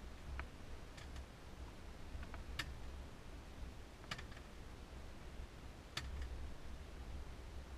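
A few irregular light clicks and ticks from handling an ice-fishing rod and reel, over a low steady rumble.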